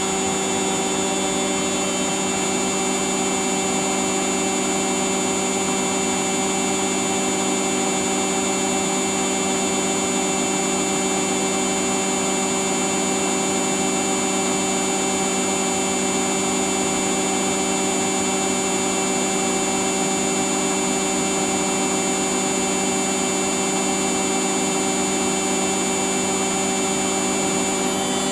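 Household appliance motor running at a steady speed: a constant hum with a high-pitched whine over it, unchanging throughout.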